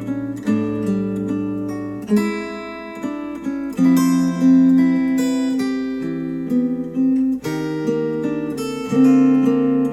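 Instrumental acoustic guitar music with strummed chords changing every second or two, played back through Focal Chora 806 bookshelf speakers driven by a NAD C 328 integrated amplifier.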